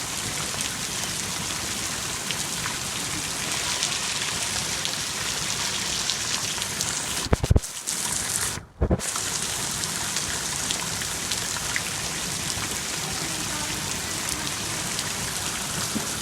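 Rain falling steadily: a dense, even hiss. About seven and a half seconds in there is a brief loud thump, and just after it the sound cuts out for a split second.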